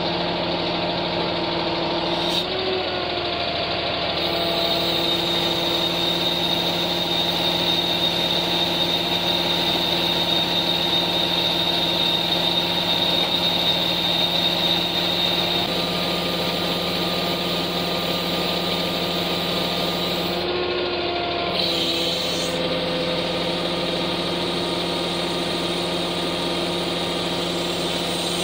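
Crane truck's engine running steadily to drive the hydraulics of its knuckle-boom crane as it lifts a concrete beam, with a steady high whine through the middle and brief shifts in pitch about two seconds in and again around twenty-one seconds as the controls are worked.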